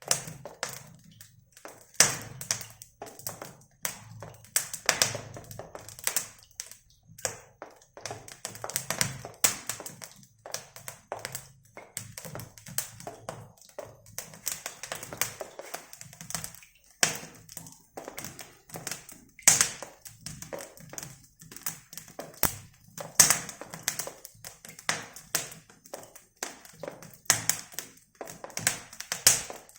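Irregular sharp taps and knocks of hand tools on brick during fireplace masonry work, several a second, with a few louder knocks.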